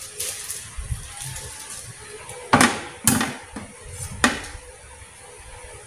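Kitchen clatter while raw chickens are cut up and deboned: three sharp knocks of a knife against the cutting board and metal trays in the middle, over faint handling noise.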